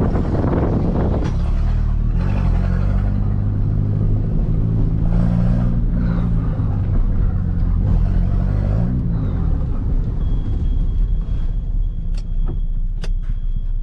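Toyota Starlet EP82's converted 4E-FTE turbocharged 1.3-litre four-cylinder engine running as the car is driven, its pitch rising and falling with speed changes. The engine note fades after about ten seconds, leaving a faint high whine and a few sharp clicks near the end.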